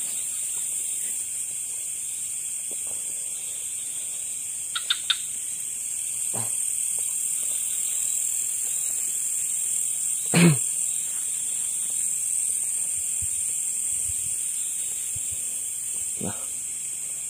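Steady, high-pitched chorus of night insects such as crickets, with a few brief knocks and rustles from movement; the loudest is a short thump about ten seconds in.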